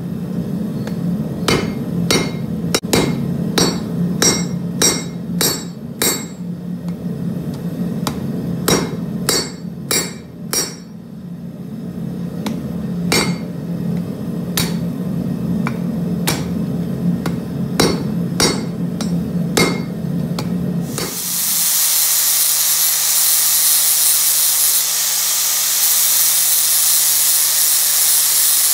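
Hand hammer striking red-hot steel on an anvil in irregular blows, about one or two a second with short pauses, over a steady low hum. About 21 seconds in it gives way to an angle grinder grinding steel with a continuous high hiss.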